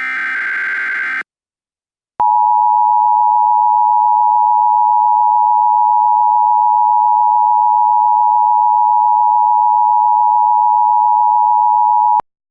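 A last one-second burst of buzzy SAME digital header data tones, a second of silence, then the steady single-pitch NOAA Weather Radio alert tone, about 1050 Hz, held loud for ten seconds and cutting off sharply: the alarm that comes before an emergency message.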